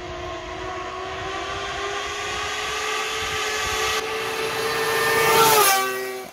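Cross kart buggy with a 600 snowmobile engine approaching at speed and driving past: the engine note rises slowly and grows louder, then drops sharply in pitch as it passes near the end.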